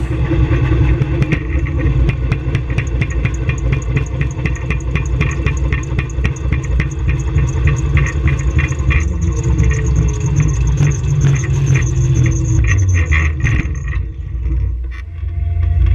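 Onboard sound of a student-built electric race car driving down a street: a heavy low rumble of wind and road noise with a rapid, even clatter from the car's chassis, and a faint high whine. The noise eases briefly near the end.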